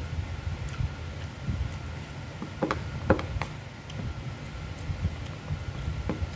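Metal spoon and fork clicking and scraping against a plastic food container while eating, with a few sharp clicks about three seconds in and another near the end, over a low steady hum.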